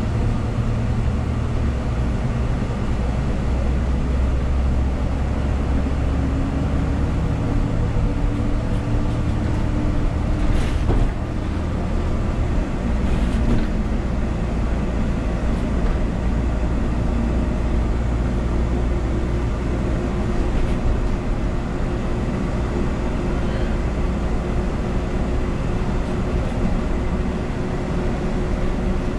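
Steady rumble of a moving city bus heard from inside the passenger cabin: engine, drivetrain and road noise, with faint tones drifting up and down in pitch. A single sharp knock sounds about eleven seconds in.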